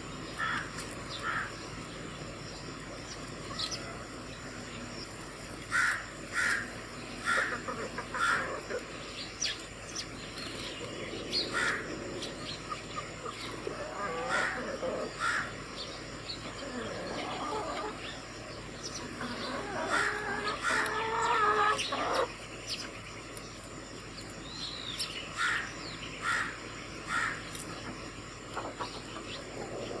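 House sparrows chirping in short, quick clusters. About two-thirds of the way through comes a longer, harsher call, which is the loudest sound.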